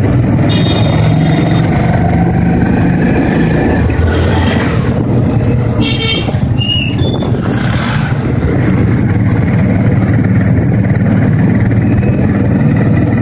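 Street traffic: a steady, loud hum of small motorcycle and rickshaw engines, heard from a moving vehicle. A few brief high tones sound about halfway through.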